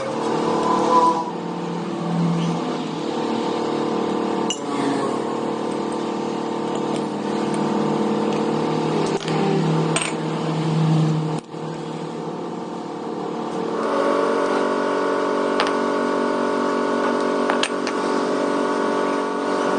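A steady mechanical hum from a running motor, with a few sharp clicks. About 14 seconds in, the hum gets brighter as higher tones join it.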